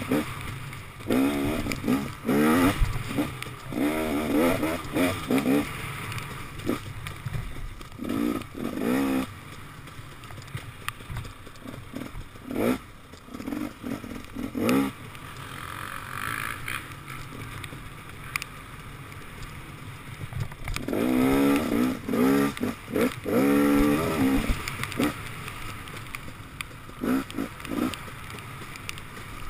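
2014 KTM 250 XC-W two-stroke enduro engine under a rider's throttle, revving up and falling back in short repeated bursts. It is quieter and lower through the middle, then picks up again near the end.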